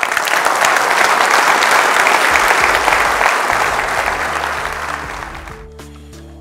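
Audience applauding right after a talk ends, loud at first and then dying away about five seconds in. Outro music with a steady bass comes in beneath the clapping and carries on after it.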